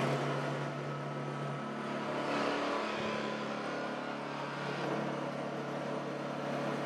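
Honda EU2000i inverter generator's small single-cylinder four-stroke engine running steadily with its carburetor freshly cleaned of gummed fuel, left to run so the fresh fuel clears it out. Its note shifts slightly about a second and a half in.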